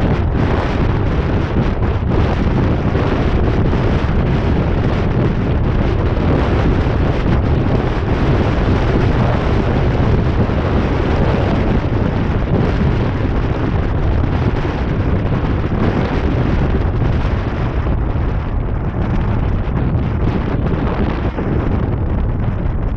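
Heavy wind buffeting on the microphone of a roof-mounted camera on a vehicle moving at highway speed, a steady low rumble mixed with road noise. The upper hiss thins a little in the last few seconds.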